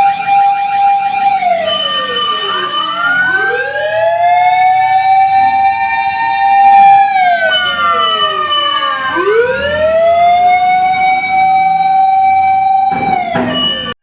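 Several fire truck sirens wailing together, their pitch sweeping slowly down and back up every few seconds. A steady higher tone breaks in twice, and there is a short burst of noise near the end.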